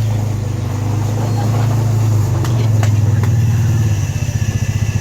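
A motor running with a loud, steady low hum that turns into a fast, pulsing throb about four seconds in.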